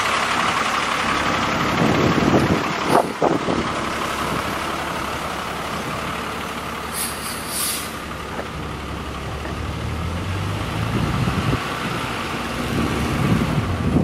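2000 Freightliner tanker truck's diesel engine running as the truck pulls away, its note rising about ten seconds in. A short high hiss comes about seven seconds in.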